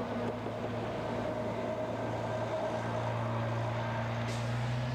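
A vehicle engine running steadily: a continuous low hum that holds several constant tones.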